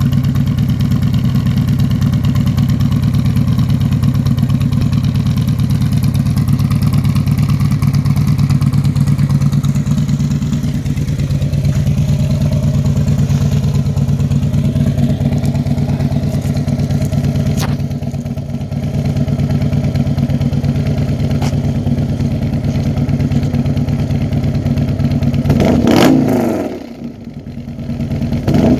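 Harley-Davidson V-twin with a D&D Billet Cat exhaust and Andrews 460 cam idling about two minutes after a cold start. Near the end it is given two quick throttle blips that rise and fall.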